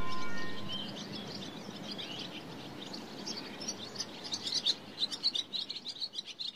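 Small birds chirping, many short high calls that grow busier and louder toward the end. The last ringing of a church bell dies away in the first second.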